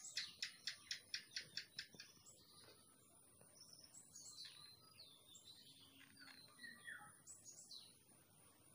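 Birds calling faintly in the background: a quick run of about a dozen sharp high notes in the first two seconds, then scattered high, falling chirps.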